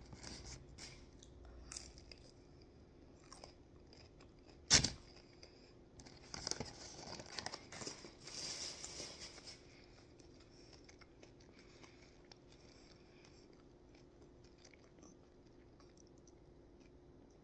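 Biting into and chewing a fried, breaded mozzarella stick: one sharp crunch about five seconds in, then a few seconds of crunchy chewing, after which only a faint steady hum remains.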